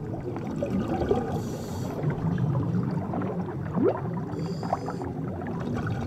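Underwater bubbling and water rushing around a diver breathing from a surface-supplied regulator, with two short high hisses about a second and a half and four and a half seconds in.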